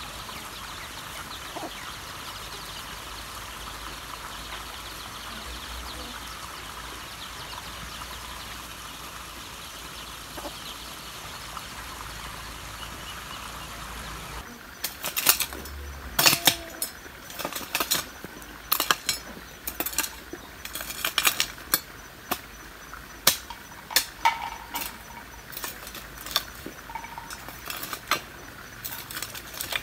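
Chicks peeping and a hen clucking softly over a steady hiss. About halfway through this gives way to a hoe chopping into stony clay soil: a run of sharp, irregular clinks and knocks.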